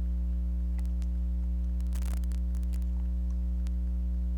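Steady low electrical mains hum with its overtones, with a few faint clicks and a short rustle of handling about two seconds in.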